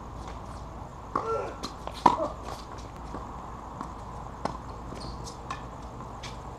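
Tennis rally on a hard court: a sharp crack of racket on ball about two seconds in, the loudest sound, with fainter ball hits and bounces and footsteps around it.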